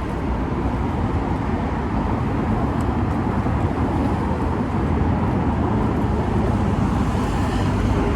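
Steady city-street traffic noise, a continuous low rumble with no distinct events.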